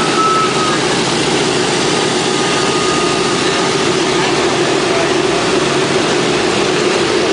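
Boeing B-17's Wright Cyclone nine-cylinder radial engines running on the ground with propellers turning, loud and steady.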